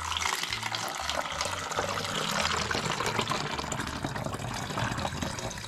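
Water poured from a glass measuring jug through a plastic funnel into a plastic soda bottle: a steady splashing, filling sound of water running into the bottle.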